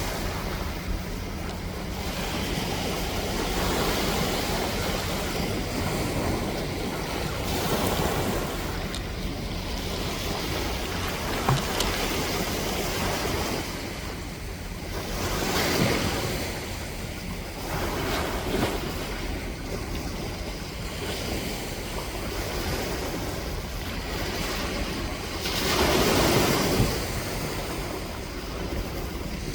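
Ocean waves breaking and washing on the shore in a continuous surf, swelling louder every several seconds as bigger waves break.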